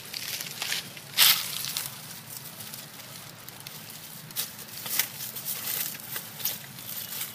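Scattered crackling and crunching, with one louder crunch about a second in and several short ones later.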